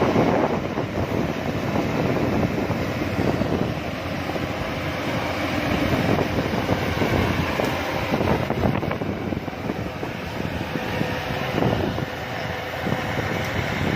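Yanmar YH-850 combine harvester running steadily.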